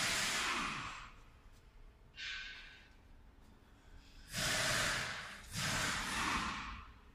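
Close breathing at the microphone: four loud, breathy exhalations, a short one about two seconds in and two longer ones back to back near the end.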